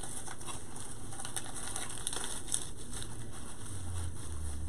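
Light rustling and crackling of deco mesh and artificial floral picks being worked into a wreath by hand, with scattered small clicks. A low hum comes in near the end.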